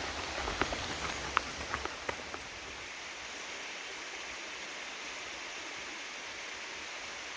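Steady rush of water from a small waterfall on a stream, with a few light clicks and taps in the first couple of seconds.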